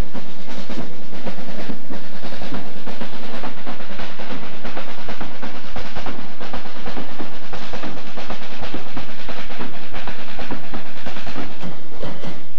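School marching fanfarra playing: its drums beat a rapid, steady pattern of strokes, loud throughout.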